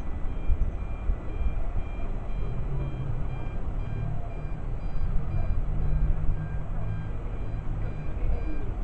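Wind buffeting the microphone over a low, uneven rumble, with faint short beeps repeating about once a second.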